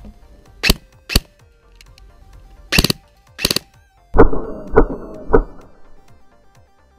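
Airsoft BBs fired from an electric airsoft gun and striking ESS Ice ballistic glasses: four sharp cracks in the first three and a half seconds, the last two sounding like short bursts. From about four seconds in the hits come slowed down, as in a slow-motion replay: three deeper, duller thuds about half a second apart. Music plays underneath throughout.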